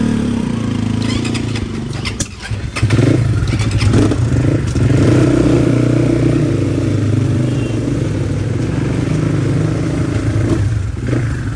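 Crossfire RM250 dirt bike engine running under way. Engine noise dips briefly about two seconds in, as with a gear change, then comes back in and holds steady, easing off near the end.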